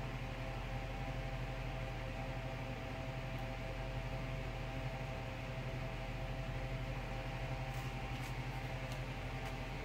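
Steady background hum and hiss of room tone, like a fan or mains-powered equipment running, with a few faint ticks near the end.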